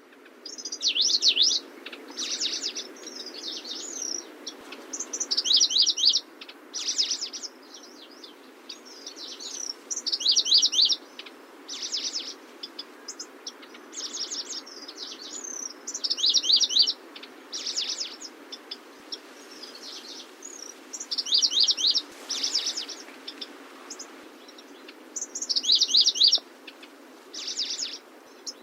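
Grasshopper warbler (Locustella) singing: short phrases of fast trilled notes, repeated every second or two, over a steady low background hiss.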